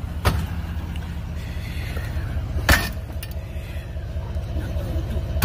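Axe blows striking a tow truck's wheel-lift rigging: a light hit just after the start and a hard, loud hit a little under three seconds in. A steady low engine rumble, from a vehicle idling close by, runs under the hits.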